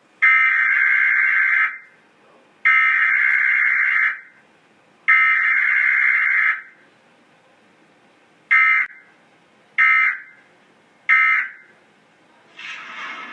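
Emergency Alert System Required Weekly Test data tones. Three long, harsh, buzzing SAME header bursts of about a second and a half each are followed by three short end-of-message bursts. A wide rushing noise starts near the end.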